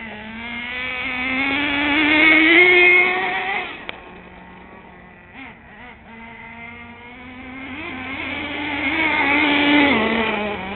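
Nitro RC truck's small glow-fuel engine revving up twice as the truck accelerates: the pitch and loudness climb for about three seconds and then drop off, and climb again from about seven seconds in before falling away near the end.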